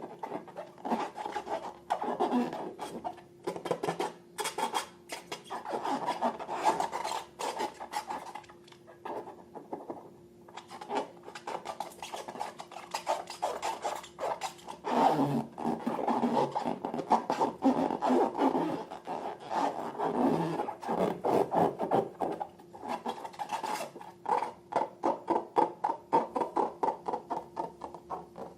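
Sticky slime being squeezed and worked by hand, giving a dense crackling with many small clicks; near the end it turns into an even run of quick pops, about three or four a second.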